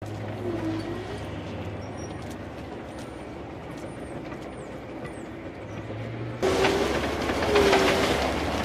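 Tracked AAV7-type amphibious assault vehicles running, with a steady low engine drone and a whine that wavers in pitch. About six seconds in it turns suddenly louder, to the clatter of steel track links over the sprocket.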